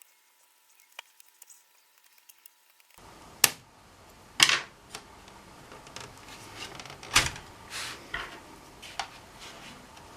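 Nearly silent for about three seconds, then a string of sharp clicks and knocks from tools and plastic laptop parts being handled during disassembly, three of them much louder than the rest.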